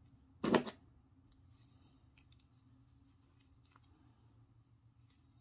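Hands crocheting with yarn and a crochet hook: one brief noisy rustle about half a second in, then faint rubbing and light ticks.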